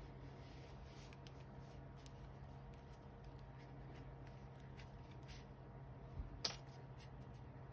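Faint rustling of fingers working a needle and yarn tail through a crocheted cotton-yarn piece, over a steady low hum, with one sharper click about six and a half seconds in.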